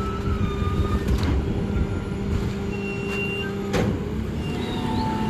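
Rear-loader garbage truck's engine running at idle with a steady hum, while trash bags are tossed into the rear hopper. Three sharp knocks come about a second in, two and a half seconds in, and loudest near four seconds.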